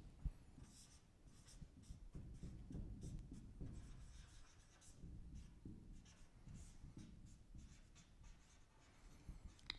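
Faint marker pen strokes on a whiteboard: a line drawn, then a couple of words written in short, irregular strokes.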